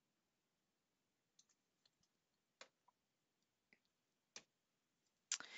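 Near silence with about six faint, scattered clicks: a stylus tapping and drawing on a tablet screen.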